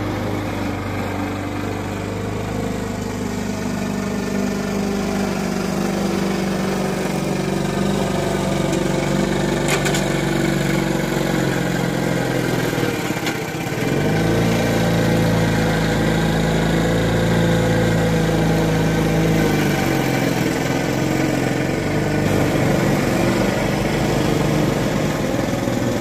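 Walk-behind gas rotary lawn mower's small engine running steadily as it cuts grass. About halfway through, its pitch sags briefly and picks back up.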